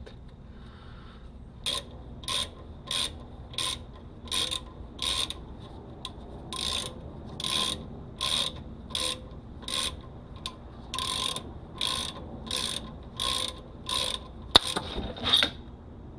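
Hand ratchet wrench worked back and forth in quick, even strokes, about one and a half a second, each stroke a burst of pawl clicking, as it snugs down a brake caliper slide pin. A single sharp snap near the end.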